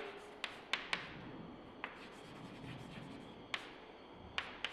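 Chalk writing on a chalkboard: faint scraping strokes broken by about seven sharp taps as the chalk strikes the board.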